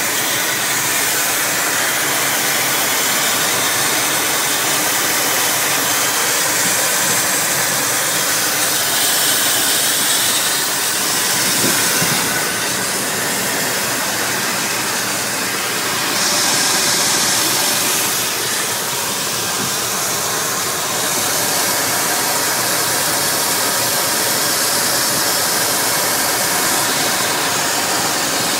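Car engine running, heard close up under the hood, with a steady hiss over it. It swells a little louder twice, about ten and sixteen seconds in.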